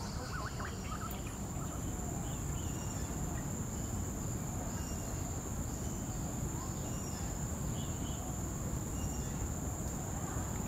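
A steady high-pitched insect drone over a low, steady rumble, with short chirps every second or so.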